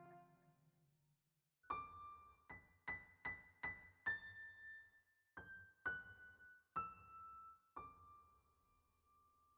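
Quiet background music: a chord dies away, then a slow melody of about ten single keyboard notes steps downward, ending on a held note.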